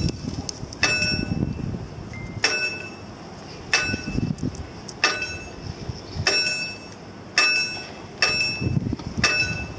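Warning bell of mechanically operated level-crossing barriers striking as the barrier arms are lowered: about eight evenly spaced strikes a little over a second apart, each ringing on briefly, with a low rumble between them.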